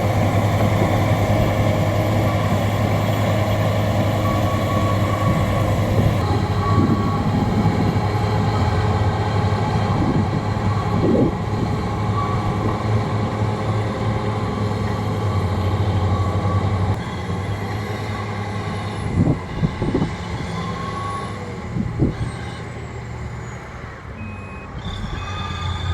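Bulldozer's heavy diesel engine running steadily under work, with a few sharp clanks in the second half. A high, evenly repeating beep starts near the end, typical of a reversing alarm.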